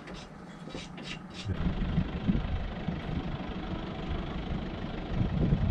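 Vehicle engine idling with a low, uneven rumble that begins about a second and a half in.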